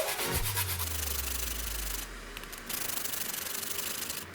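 Steady scraping and rubbing in a bowl as grated ginger is added to raw chicken pieces for the marinade, with a short lull about two seconds in.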